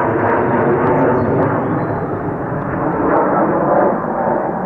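Jet engines of a pair of fighter jets passing overhead: a loud, steady roar that swells a little near the end.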